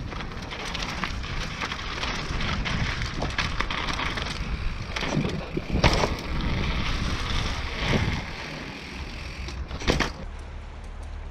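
Mountain bike rolling fast over rough asphalt and brick paving: steady tyre noise with the frame and chain rattling. Three sharp knocks from hard impacts fall in the second half.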